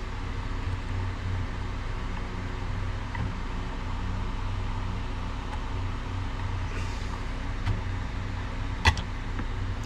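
Steady low hum with light handling sounds as thick wire is worked into a plastic balun enclosure, and one sharp click about nine seconds in.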